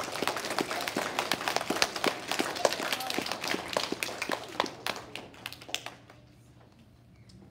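Audience applauding: dense clapping that thins out and dies away about five or six seconds in.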